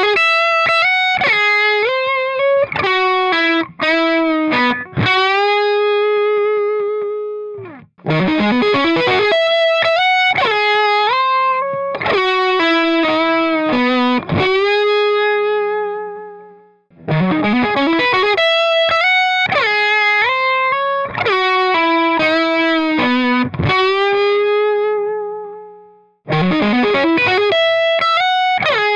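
Electric guitar through a miked amp at the edge of breakup, a lightly overdriven tone, playing the same short phrase four times in a row. Each time, picked notes climb into a chord that is left ringing until it fades. The takes are played in turn on a Les Paul, a PRS, a third guitar and a Harley Benton double-cutaway.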